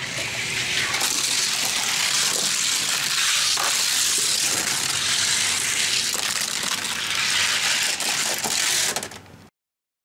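Two 1:64 die-cast cars, a Hot Wheels Bone Shaker and a T-Bird Stocker, rolling fast down a plastic gravity race track: a steady, hissing rush of small wheels on the track with a few clicks, cutting off suddenly near the end.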